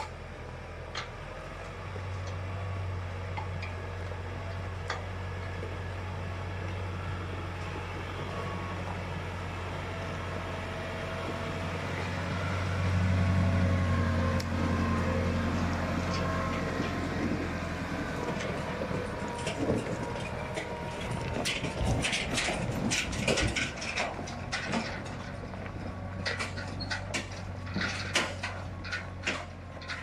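Deutz-Fahr tractor's diesel engine running steadily as it climbs a rough track pulling a loaded trailer, growing louder as it passes close about halfway through. After that comes a run of sharp knocks and clattering.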